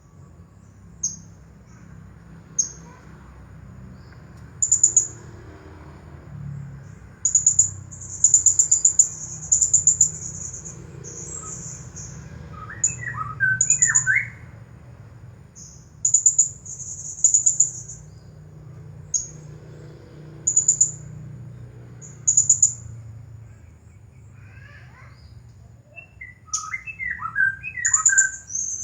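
Blue-crowned hanging parrot (serindit) calling nonstop: short, very high, thin trilled bursts repeated every second or two, some longer and louder than others.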